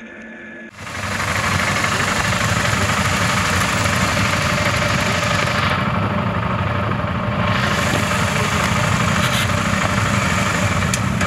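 Several large adventure motorcycles running at low revs as they ride slowly past one after another on a gravel road, making a loud, steady, dense engine rumble. It starts suddenly about a second in, after a brief quieter steady whine from the onboard electric motorcycle.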